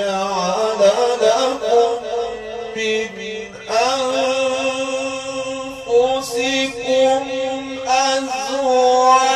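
A man's voice reciting the Quran in a drawn-out melodic chant, holding long ornamented notes with a wavering pitch. A new phrase begins about four seconds in and another near the end.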